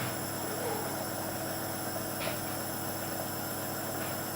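Nebulizer compressor running, a constant hum with a steady hiss of misting air.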